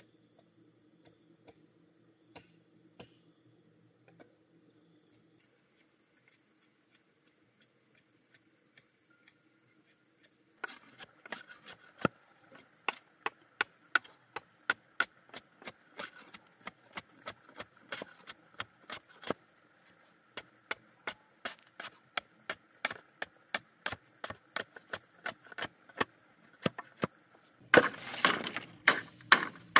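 Machete chopping a bamboo pole: sharp woody chops at about two a second, starting about a third of the way in, over a steady high drone of insects. Near the end the chopping gives way to a denser rustle and clatter of split bamboo strips being handled.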